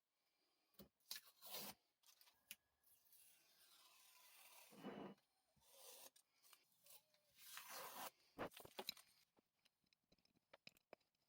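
Faint scraping and rubbing strokes, several in turn, then a run of small clicks and taps near the end.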